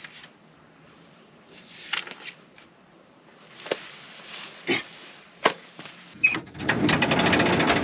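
Handling sounds: paper rustling and a few light knocks on a camp table, then a loud burst of rustling and scraping near the end as a person gets up out of a folding camp chair.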